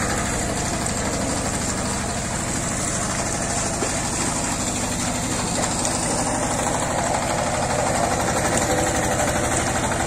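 Engine of a walk-behind power tiller running steadily under load in a wet field, with a fast, even beat.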